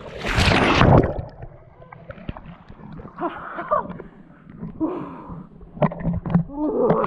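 A loud splash into water lasting about a second, followed by quieter sloshing and a few short vocal exclamations.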